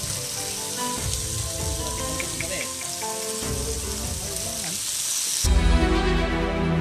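Meat sizzling on an electric grill plate, a steady frying hiss with faint music in the background. About five seconds in it cuts abruptly to loud electronic music with heavy bass.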